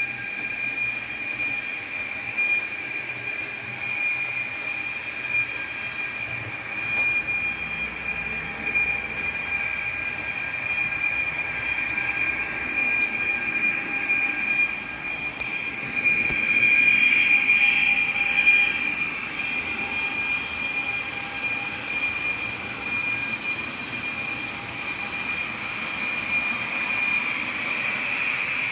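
Trix model locomotive's built-in sound playing a running train: a steady high whine over a continuous running noise, growing louder for a few seconds a little past halfway.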